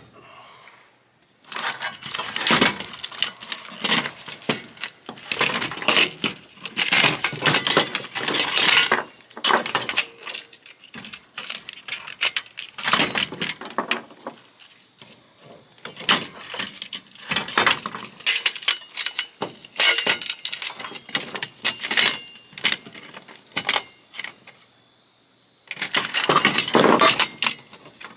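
Irregular bursts of metallic clicks, clinks and rattles as an oscilloscope's metal parts and hand tools are worked on during dismantling, with short pauses between bursts.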